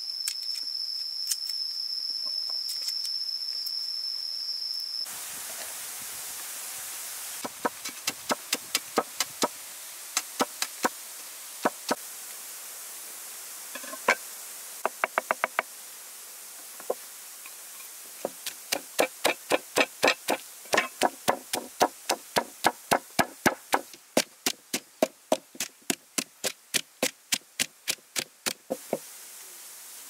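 Pestle pounding chilies and garlic in a mortar to make chili sauce: sharp knocks in runs of a few, then a long steady run of about three a second. In the first few seconds, before the pounding, a steady high whine sounds.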